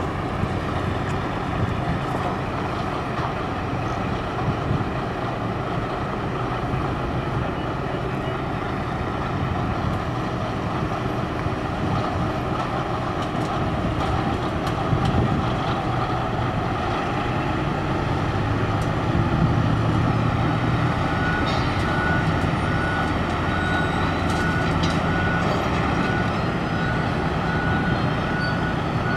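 Diesel engine of heavy rail-recovery equipment running steadily, a little louder about two-thirds of the way through. Near the end a run of short, evenly spaced high beeps sounds over it.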